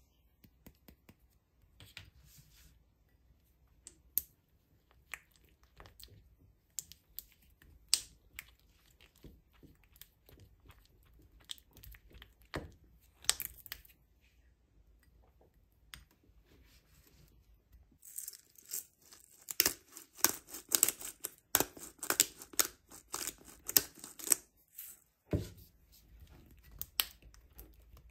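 Crinkling and tearing handling sounds: scattered sharp crackles at first, then several seconds of dense, louder crinkling late on, ending with a soft thud.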